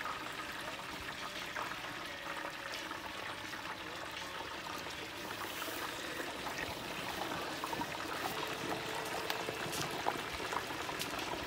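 Hot oil bubbling and sizzling steadily in a large propane-fired deep-fryer pot as chicken fries, with scattered small crackles.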